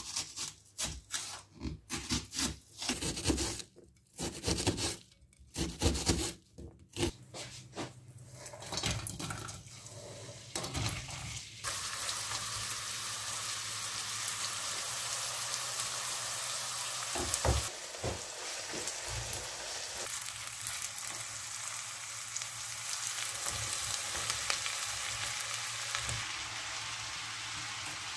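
Knife chopping an onion on a plastic cutting board: a quick, irregular run of sharp chops for the first ten seconds or so. Then, about twelve seconds in, the chopped onion starts sizzling steadily in a frying pan, with a few knocks of a spatula stirring it.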